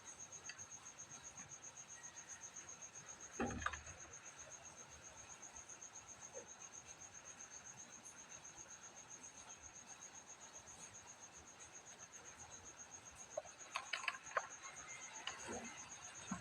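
IKEA NOJS alarm clock's electronic alarm sounding: a steady, high-pitched pulsing beep of about five pulses a second. A few handling knocks come about three and a half seconds in and again near the end.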